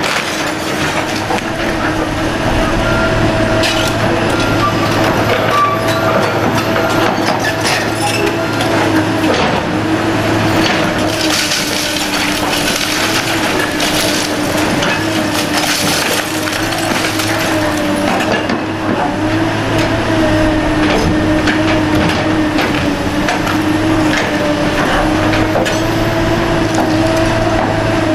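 Hydraulic excavator running with a steady whine while its demolition crusher jaws break into a concrete wall. Concrete crunches and cracks and debris falls, most densely about halfway through.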